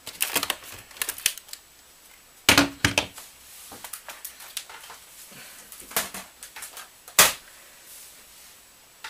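Hard plastic clicks and knocks as a laptop battery pack is pulled out of its bay in an Acer laptop and handled on a table. Small scattered clicks at first, a loud knock about two and a half seconds in, and a sharp, louder knock about seven seconds in.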